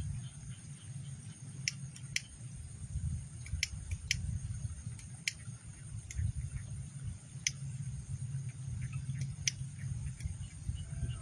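Evening lakeside ambience: a steady low rumble, a thin high insect drone, and about a dozen sharp, scattered clicks, with faint chirps near the end.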